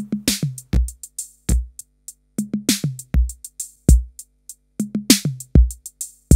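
Drum-machine beat of kick, toms and hi-hats heard through a simple DIY diode-VCA audio compressor as its compression-ratio knob is turned back. The output pushes further past the threshold and the distortion from over-compression disappears.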